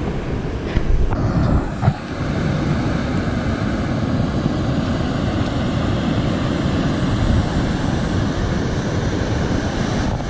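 Water pouring over a low dam's spillway: a steady rush, with wind on the microphone. In the first two seconds there are a couple of brief bumps before the rush settles in.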